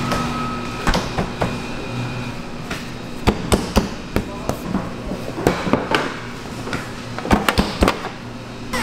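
Sharp, irregular knocks and clatter of a metal baking tray being handled as shaped raw bagel dough rings are set down on it.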